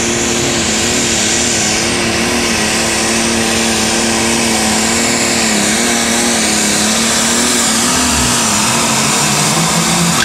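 Super stock pulling tractor's engine, on a Massey Ferguson, held at high revs under full load as it drags the weight-transfer sled down the track. The pitch stays nearly steady with a slight waver, and the sound is loud throughout.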